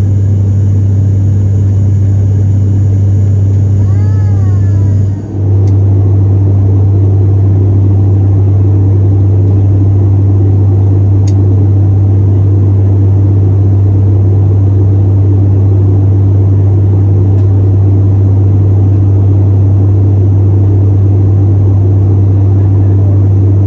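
Cabin drone of an ATR 72-500's Pratt & Whitney PW127 turboprops and six-bladed propellers in flight: a loud, steady drone with a deep hum from the propeller blades. It dips briefly about five seconds in.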